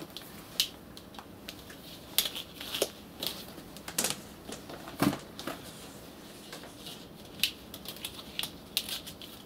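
Handling noise from a small benchtop atmospheric plasma unit and its black rubber torch hose: irregular clicks, taps and rustles as the box is turned over and set down and the hose is moved about, with one louder knock about five seconds in.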